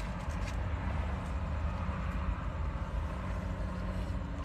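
Steady low vehicle rumble heard inside a car cabin.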